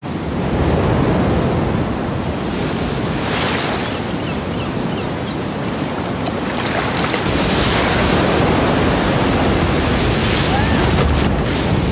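Rough ocean surf churning and breaking, with wind blowing over it; the wash swells up in surges every few seconds.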